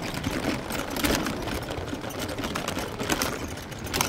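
A small vehicle's motor whirring steadily as it rolls over a rough dirt track, with scattered crunching and rattling clicks from the ride.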